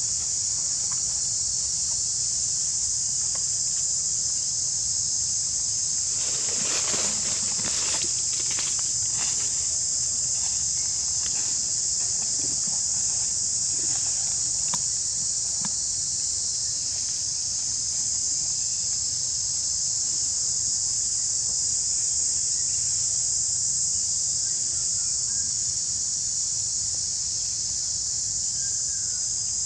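Steady, high-pitched drone of a forest insect chorus. A few short rustles or clicks come about six to nine seconds in.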